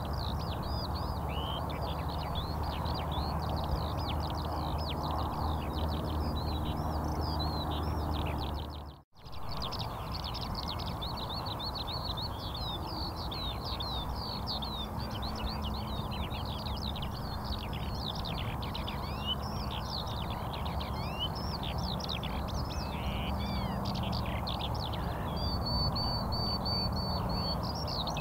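Many small birds chirping and twittering at once in a dense, continuous chorus, with a brief break about nine seconds in. Near the end a steady high whistled note is held for a couple of seconds.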